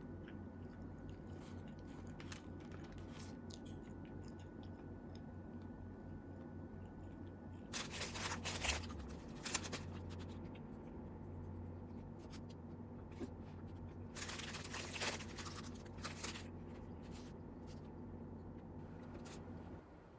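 Small handling clicks and two short bursts of crinkling or rustling over a steady low hum.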